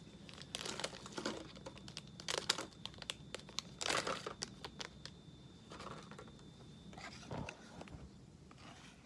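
Plastic fruit-snack pouch crinkling as it is handled and the gummies are shaken out of it, in irregular crackly bursts that are loudest in the first four seconds or so and then die down. A single dull knock comes about seven seconds in.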